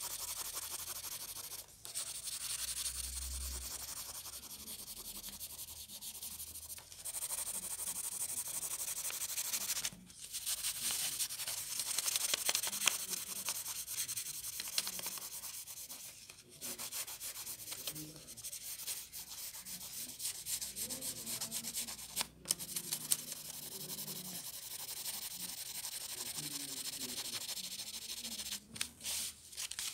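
Pencil shading on paper: rapid back-and-forth scratching strokes of the lead across the sheet, continuous apart from a few brief pauses.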